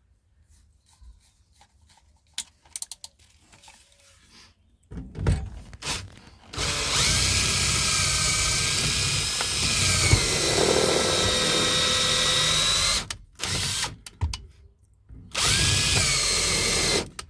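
Electric drill with a 1/8-inch bit boring into an ignition lock cylinder beside the key slot, to disable the lock mechanism. After a few clicks and short starts, the drill runs steadily for about six seconds, its whine dipping and recovering under load, then stops, and runs again briefly near the end.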